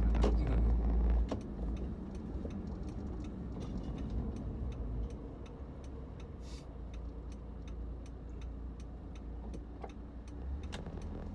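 Inside a car: a steady low engine and road rumble, louder for about the first second, with a regular ticking typical of a turn-signal indicator.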